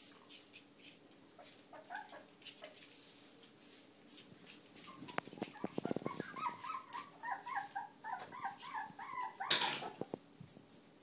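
Whippet puppies whimpering: a quick run of short, high whimpers, about four a second, starting a little past the middle, after a few light knocks. A brief loud rustle comes near the end.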